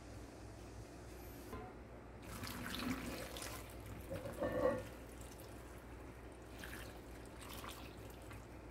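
Hot soy-sauce brine poured from a pot into a glass bowl of cut onions and chili peppers, the liquid splashing and trickling over them, loudest about four and a half seconds in.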